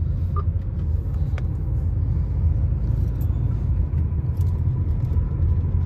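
Steady low rumble of a moving bus, engine and road noise heard from inside the cabin.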